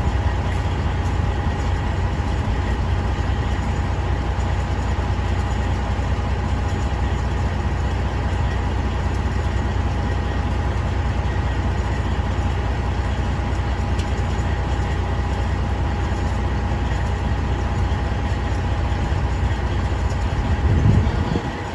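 Semi-truck diesel engine idling steadily, a deep low rumble with a steady hum above it, swelling briefly louder near the end.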